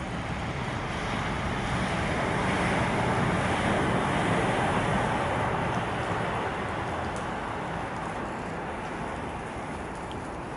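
Rushing hiss of a vehicle's tyres passing on a wet road, swelling to a peak about four seconds in and slowly fading away.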